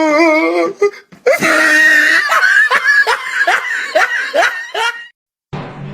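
A person laughing hard in rapid bursts, about two a second, after a wavering, wailing voice at the start. The laughter cuts off and low, dark music begins near the end.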